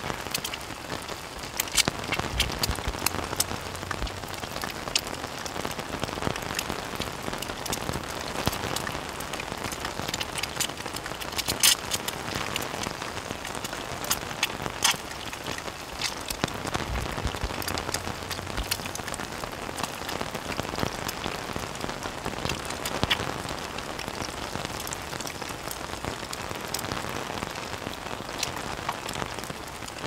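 Steady rain falling on the surface around the camp, with many sharp single drop hits scattered through it.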